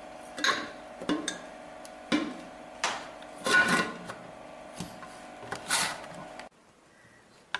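Pressure cooker on the stove, its vent weight rattling and letting out short, irregular hissing spurts of steam over a steady hum. The sound cuts off suddenly about a second before the end.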